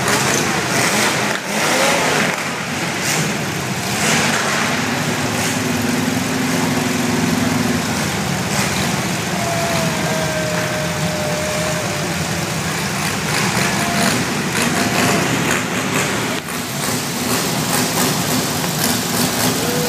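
Several demolition derby cars' engines idling and revving together, revs rising and falling now and then.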